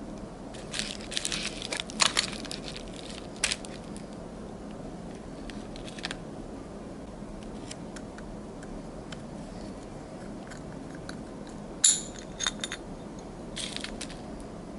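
Small metal parts and hand tools being handled on a workbench during a motorcycle starter motor rebuild: scattered clicks, clinks and scrapes in a few clusters, the loudest near the end, over a steady background hum.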